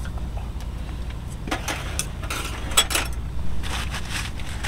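Quiet campsite meal: scattered light clicks and knocks of utensils and food handling, along with the wood fire in the stove, over a steady low rumble. The clicks cluster in the second half.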